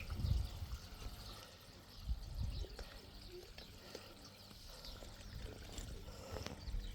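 Water pouring and trickling from a newly drilled well, faint, with a few low rumbles at the very start.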